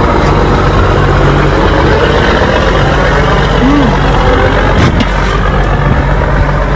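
A boat engine idling steadily, with a constant low hum.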